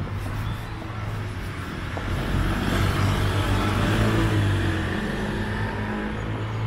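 A motor vehicle passing: a low engine hum with road noise that swells to a peak about halfway through, then fades.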